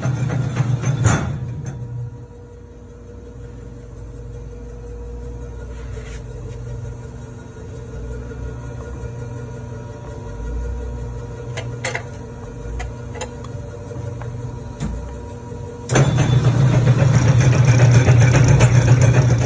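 Commercial Hobart meat mixer-grinder's electric motor running with a steady low drone, cut off with a click about a second in, leaving a faint hum with a few clicks. About sixteen seconds in the motor starts again suddenly and runs at full drone.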